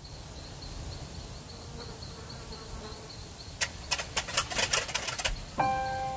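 Sound effect of bird wings flapping: a quick run of flaps lasting about a second and a half, over a low rumble. Near the end a held music chord comes in.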